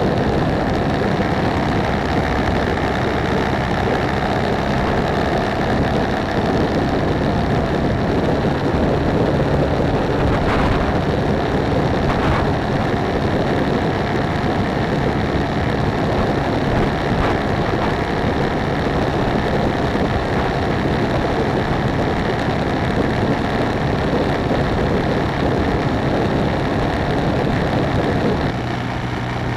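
BMW G650GS single-cylinder motorcycle engine running at road speed under heavy wind and road noise on the bike's microphone. The level drops a little near the end, leaving a steadier low engine note.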